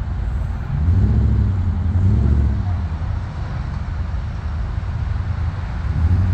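Road vehicles passing close by: a low rumble of engines and tyres that swells about a second in and again near the end.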